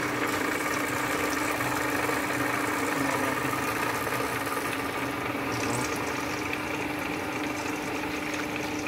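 Headstock gearbox of an old Japanese lathe, cover open, running in a slow gear: a steady machine hum with one constant tone, gears turning while lubricating oil splashes over the gears and shafts. It is running smoothly on fresh oil.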